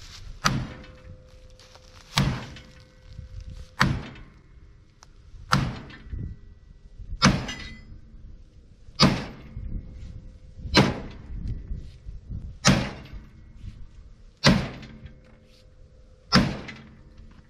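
Hammer blows on a 1994 Ford Ranger's steel frame rail while it is held under pull, about ten evenly spaced strikes, one every second and three-quarters or so, each with a short metallic ring. The hammering helps set the over-pulled rail so it doesn't spring back as far.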